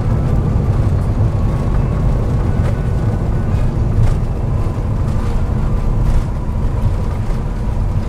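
Cabin noise of an Airbus A350-900 taxiing after landing: a steady, loud low rumble from the idling engines and the wheels rolling on the taxiway.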